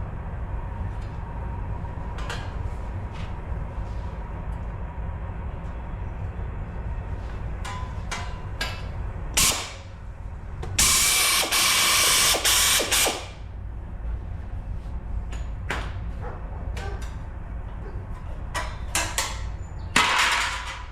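Pneumatic air shears cutting through a steel wheel arch patch panel: a steady mechanical chatter with scattered sharp snaps, and a loud burst of air-tool noise lasting about two seconds around the middle.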